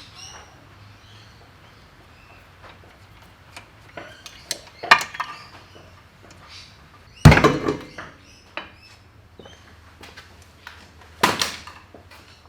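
Scattered clanks and knocks of metal tools and parts being handled during work on a car's tail shaft, with a few clinks about four to five seconds in, a heavy knock about seven seconds in (the loudest), and another near the end.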